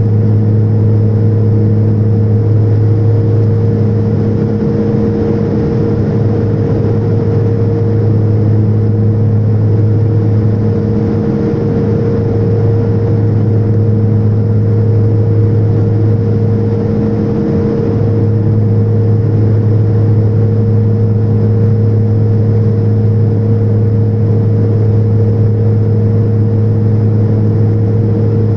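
Turboprop engine and propeller in flight, heard from inside the passenger cabin: a loud, steady drone with a deep constant propeller hum and a layer of airflow noise over it.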